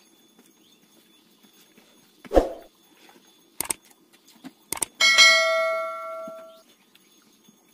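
Subscribe-button animation sound effect: a few sharp mouse clicks, then a notification bell ding that rings for about a second and a half and fades out. A single dull thump comes a couple of seconds before the clicks.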